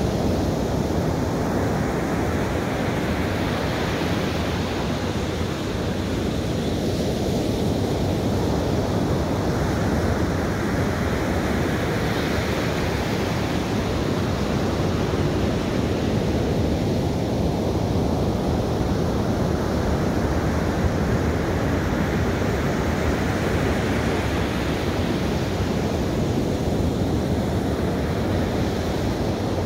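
Ocean surf breaking on a sandy beach: a steady wash of waves, with the hiss of a breaking wave rising and falling away every eight to ten seconds.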